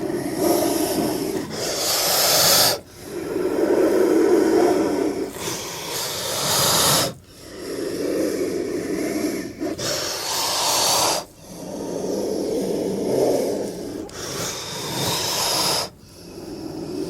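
A snake hissing over and over in long, breathy, rasping hisses, each lasting a few seconds, with brief pauses between them.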